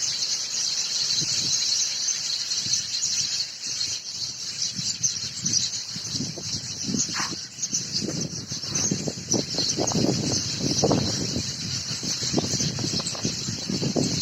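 Many birds chirping at once in a dense, unbroken high-pitched chorus. Irregular low rumbling bumps come and go beneath it, mostly in the second half.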